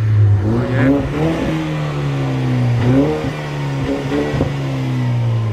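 A car engine revved in several short blips, each rising and falling in pitch, over a steady low engine drone.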